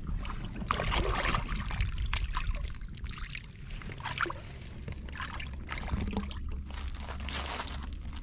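Water sloshing and splashing in irregular bursts as a carp is released by hand into the river.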